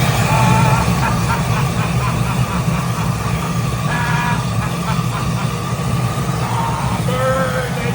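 A vehicle engine running steadily, with a few faint short higher-pitched sounds over it.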